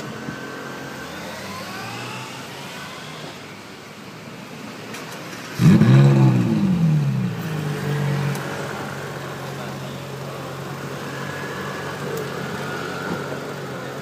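Ferrari 458 Italia's V8 starting up about five and a half seconds in: a sudden loud flare of revs that rises and falls back within a second or two, then settles into a steady idle. Before it, only faint street noise.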